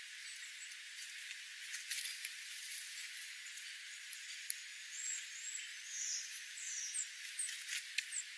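Birds feeding on seed scattered over gravel: scattered sharp clicks and pecks, with a few short high chirps about two-thirds of the way in, over a steady hiss.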